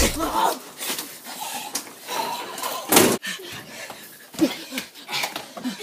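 Knocks and scuffling of people clambering over a wooden fence and jumping down, with a heavy thump at the start and a sharp bang about three seconds in. Brief voices near the end.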